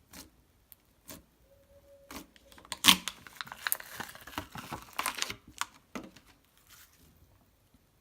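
Slime being worked by hand, making sticky clicks and crackling pops: a few separate clicks, then a dense crackling run of about two and a half seconds near the middle, trailing off into a few more clicks.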